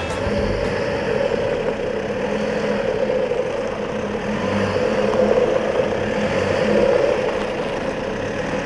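Mitsubishi L200 pickup's diesel engine running steadily at low revs as the truck crawls through a deep rut.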